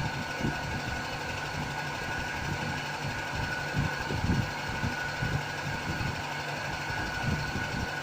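Vacuum-forming machine's vacuum motor running steadily with a constant high whine and a low hum, with a few irregular low knocks.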